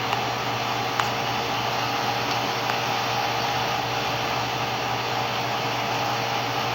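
A steady rushing, blower-like air noise with a faint low hum under it, holding even throughout.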